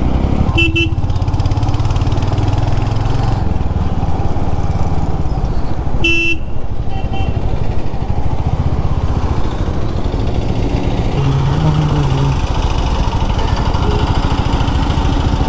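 Royal Enfield Hunter 350's single-cylinder engine running while riding in traffic, with short vehicle horn beeps: one near the start, a louder one about six seconds in, and a brief one just after.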